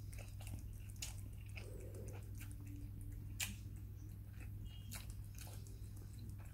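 A cat eating from a small plastic cup held in a hand: quiet, irregular licking and chewing clicks.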